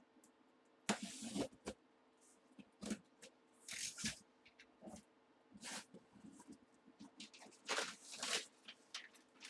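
A cardboard box being opened and handled: irregular rustles, scrapes and tearing of cardboard and paper, over a faint steady hum.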